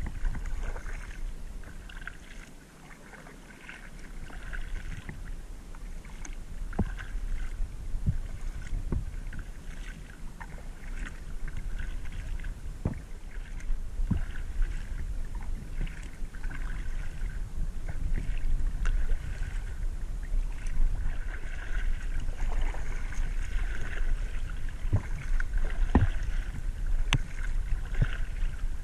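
Kayak paddle strokes on calm water: the blades dipping and splashing in a steady rhythm about every one to two seconds, with scattered light clicks and drips between strokes.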